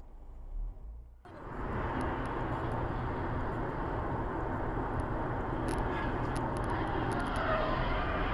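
Steady road and engine noise of a car driving on a highway, heard from inside the cabin. It starts suddenly about a second in, with a low rumble and a few faint ticks.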